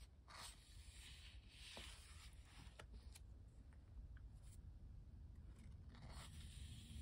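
Pages of a Pentalic paper sketchbook being turned by hand: faint rustling sweeps of paper, one near the start, a longer one around two seconds in and another near the end, with a few light taps between.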